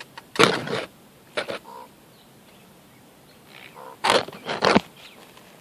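Raven giving a series of short, raspy calls: a few scattered ones, then two loud calls in quick succession about four seconds in.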